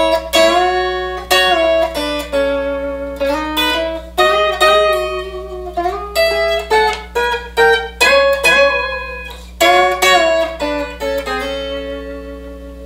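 Telecaster-style electric guitar played through an amp: a swing blues lick of picked notes with string bends, ending on a chord that rings and fades near the end. A steady low amp hum runs underneath.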